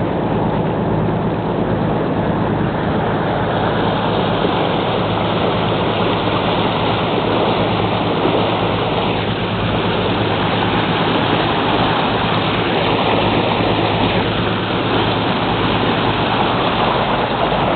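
Lobster boat's engine running steadily under way: a low, even drone beneath a steady rush of water along the hull.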